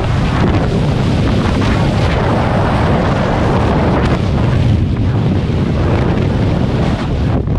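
Loud, steady freefall wind rushing over the camera's microphone, the sound of a skydiver falling at speed. The highest hiss drops away near the end.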